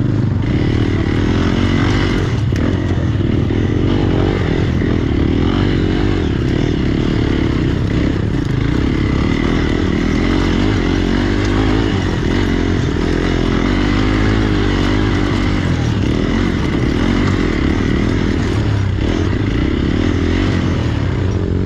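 Hero Xpulse motorcycle's single-cylinder engine running steadily, its pitch rising and falling a little.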